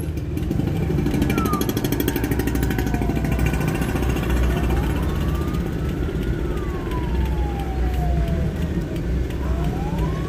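Ambulance siren in a slow wail, its pitch gliding up and down about once every five seconds. Under it is the steady low drone of the ambulance's engine, heard from inside the cab.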